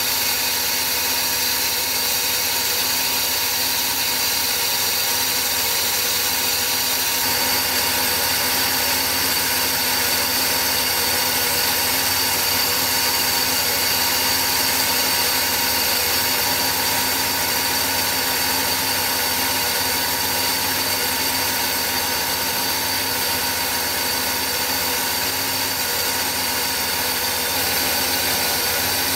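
Mercedes 560SL V8 engine running steadily, heard close up under the open bonnet, while it warms up from cold with its coolant still below 50 °C.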